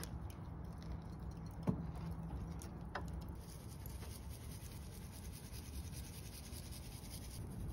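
Faint, steady low background hum with two light clicks, the first nearly two seconds in and the second about a second later.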